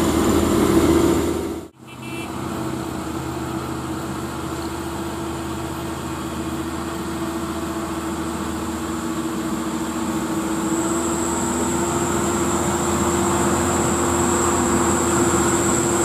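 Diesel engine of a sand-laden Mitsubishi Canter dump truck pulling up a hill with a steady hum, growing gradually louder as the truck approaches. The sound drops out for a moment about two seconds in.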